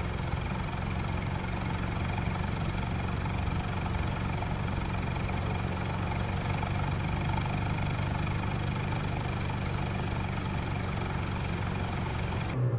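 Toyota Camry's 2.5-litre naturally aspirated four-cylinder engine running steadily at a constant speed. At the very end it briefly swells, then the revs fall away.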